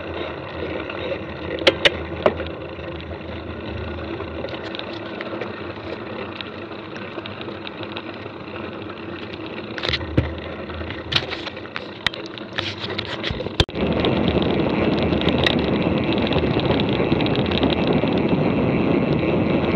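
Mountain bike rolling over a dirt track: a steady rush of tyre and wind noise with sharp knocks and rattles as the bike hits bumps, then an abrupt jump to a louder, rougher rush about fourteen seconds in.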